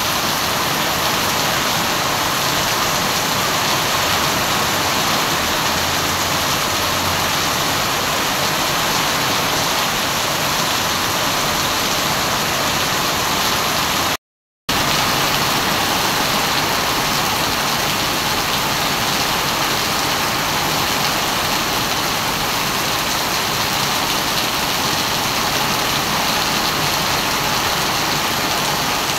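Heavy tropical downpour: a steady hiss of dense rain falling on a wet paved street. The sound cuts out for a split second a little before halfway, then carries on unchanged.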